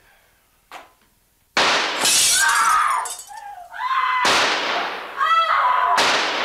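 Three gunshots fired through a window, each hit followed by a crash of breaking glass, the three a little under two to three seconds apart; between the shots a high wavering cry, like a woman screaming.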